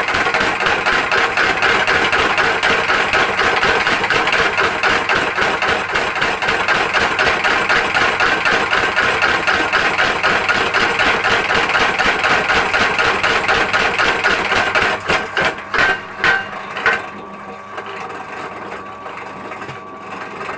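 Homemade mechanical forging hammer running, beating in a fast, even rhythm of strikes. About fifteen seconds in the rhythm breaks into a few separate, heavier blows and the hammering stops, leaving the machine's drive running more quietly.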